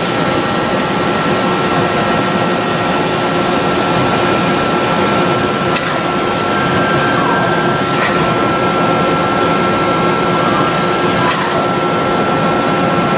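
Hitachi Seiki Hitec-Turn 20Siii CNC lathe running under power: a steady mechanical noise with a steady high whine, and a few faint clicks now and then.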